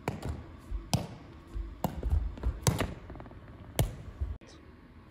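A Spikeball rally: the rubber ball is struck by hand and bounces off the taut round net, giving a string of sharp smacks about once a second, with low thuds in between.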